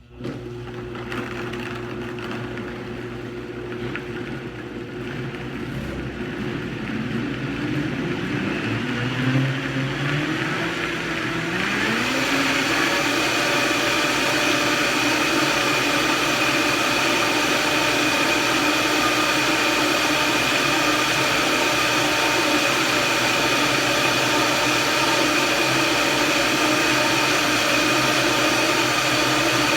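Vitamix blender puréeing chilies, onion and garlic in water. It runs at low speed first, its motor pitch climbs over a few seconds as it is turned up, then it runs steady and loud at high speed.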